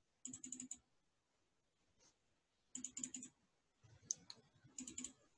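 Faint short bursts of quick clicking at a computer, four or five clicks at a time, coming a few times with quiet in between.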